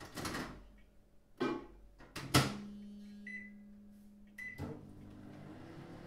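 Kitchen microwave oven being loaded and started. A few clicks and knocks are followed by a loud clack of the door shutting about two seconds in, then two short keypad beeps. The oven then starts heating with a steady hum.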